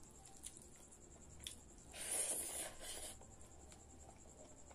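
Fingers mixing and squishing rice with dal on a plate, hand-eating: a soft wet rustle about two seconds in that lasts around a second, with faint clicks before and after.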